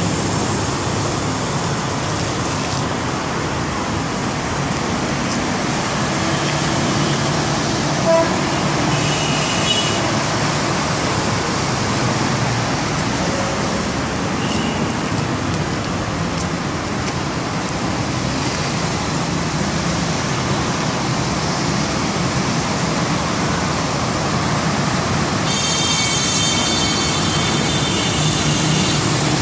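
Steady road traffic noise. A high-pitched sound of several tones rings out for about three seconds near the end.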